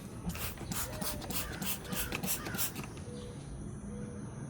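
A cloth rag being rubbed over a boat hull's gel coat in quick back-and-forth strokes, about four a second, for some two and a half seconds before stopping.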